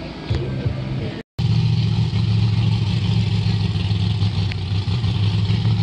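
Unlimited-class mud-bog truck's engine running steadily and loudly, held at a constant speed rather than revving up. The sound cuts out completely for a moment about a second in.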